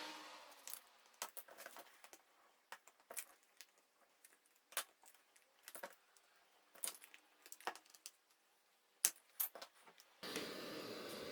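Scattered small clicks and taps of tools working at the edge of a tablet's screen. A steady rushing noise, like the heat gun used to soften the screen adhesive, fades out at the start, and a similar steady noise comes back near the end.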